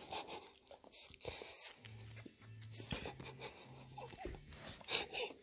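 Short high-pitched squeaks and chirps from a small monkey, several times, mixed with a dog sniffing and licking it up close.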